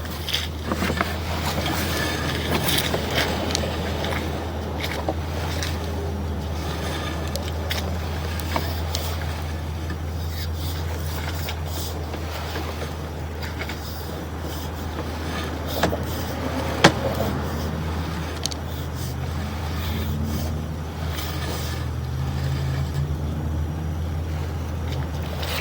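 A steady low mechanical hum, like an engine running, with scattered clicks and knocks; one sharper knock comes about 17 seconds in.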